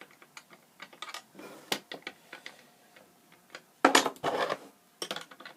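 Small parts of a die-cast toy skid steer clicking and tapping as its side panels are tried in place by hand: scattered light clicks, with a louder clatter of knocks about four seconds in.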